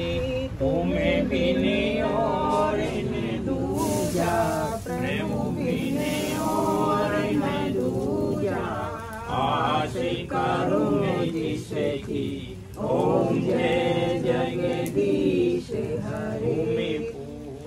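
A group of voices chanting a Hindu prayer together in a sung, melodic line, with short pauses between phrases.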